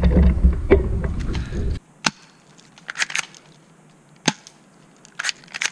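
Airsoft guns firing: sharp snaps, single and in quick pairs, roughly one a second. Before them, a loud low rumble on the microphone cuts off suddenly about two seconds in.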